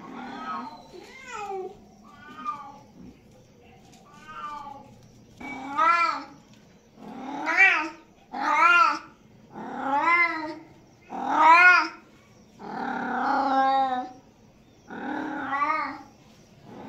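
A cat meowing over and over: about ten separate drawn-out meows, each rising and then falling in pitch. They grow louder about a third of the way in, and one near the end is held longer.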